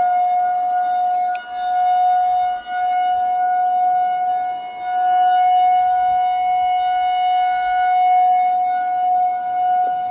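A loud, steady siren-like tone held at one pitch, dipping briefly twice in the first few seconds.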